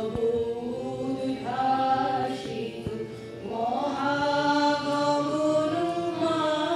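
A song sung live, slow, with long held notes that glide from one pitch to the next.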